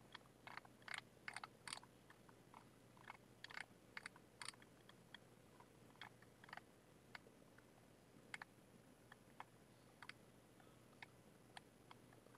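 Near silence broken by faint, irregular clicks of a computer mouse scroll wheel, coming in quick runs for the first few seconds and thinning out after that.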